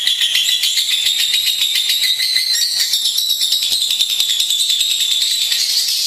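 Lovebird singing in full song: a long, fast, high-pitched chattering trill that runs on without a break.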